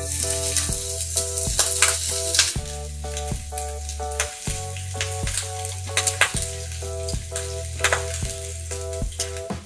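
Semolina-coated fish slice sizzling in hot oil in a frying pan: the hiss starts sharply as the fish goes into the oil and is loudest for the first couple of seconds, then settles to a lower steady sizzle. Background music with a steady beat plays under it.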